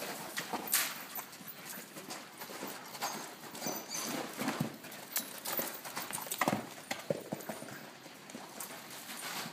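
Hoofbeats of a ridden horse cantering on sand arena footing: a run of dull, uneven thuds.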